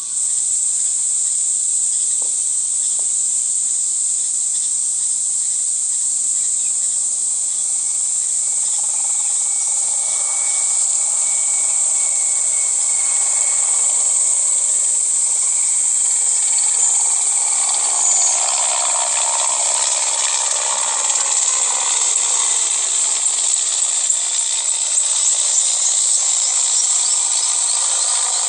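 A chorus of insects, crickets or cicadas, making a steady high-pitched shrill. About halfway through, a louder, rougher sound swells in under it and slowly drops in pitch.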